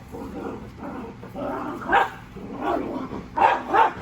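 A dog barking over and over during rough play, a string of short barks with the loudest two near the end.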